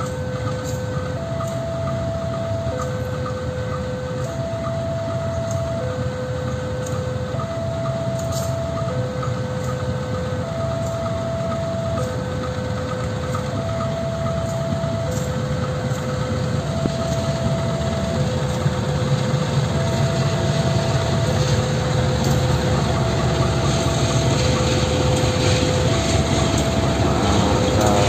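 A level-crossing warning signal repeats a slow two-tone chime, a higher note and a lower note alternating about once a second. Under it a KAI diesel locomotive hauling passenger coaches approaches and its engine grows louder, loudest as it passes close near the end.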